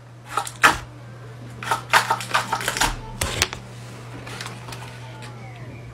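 Crisp paper clicking and rustling as a hand works its fingers into a folded paper dragon puppet head, in several short clusters over a low steady hum.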